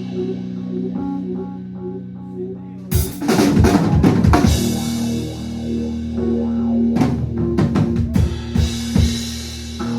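Bass and drum kit playing together: the bass holds low notes while, about three seconds in, the drums break into a dense fill of rapid snare and drum strikes, followed by scattered hits a few seconds later.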